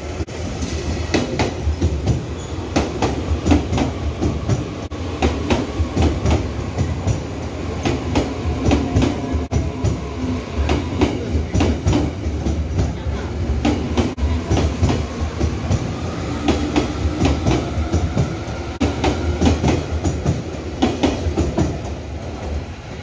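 Taiwan Railways TEMU1000 Taroko Express tilting electric multiple unit running through a station without stopping. A steady rumble carries rapid clicking from the wheels over rail joints, with a faint high whine that rises slightly about two-thirds of the way through.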